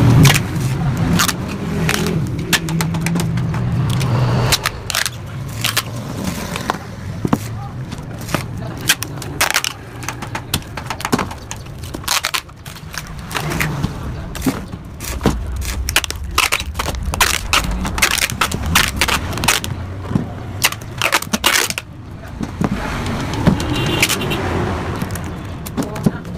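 Yamaha RX-King two-stroke motorcycle engine running through an exhaust hollowed out for a crisp, snarling note, with many sharp, irregular crackles.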